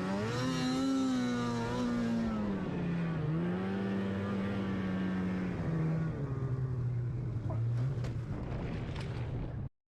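Snowmobile engine running under throttle, its pitch rising and falling as the revs change. It cuts off abruptly near the end.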